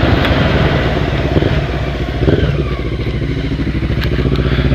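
Honda CB 500 carbureted parallel-twin engine running on the move through a newly fitted Coyote dual polished aftermarket exhaust. The engine note sags a little midway and climbs again toward the end.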